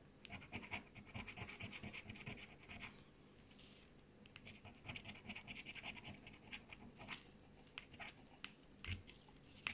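Coin scraping the coating off a paper scratch card in quick, faint back-and-forth strokes. Two runs of scraping are separated by a short pause, and a few scattered scrapes and ticks come near the end.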